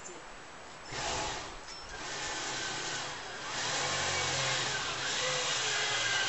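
Power drill driving a screw into a wooden post, running in several starts. There is a short burst about a second in, then longer runs whose motor pitch wavers up and down under load, loudest in the second half.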